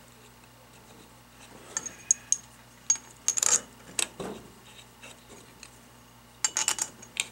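Scattered small metal clinks and taps as steel bolts are set into and threaded by hand into the aluminium valve body of a Hydro-Gear hydraulic pump. There is a cluster of clinks in the middle and a quick run of them near the end.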